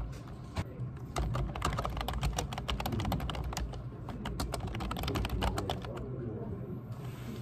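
Fast typing on a computer keyboard: a rapid, uneven run of key clicks that thins out near the end.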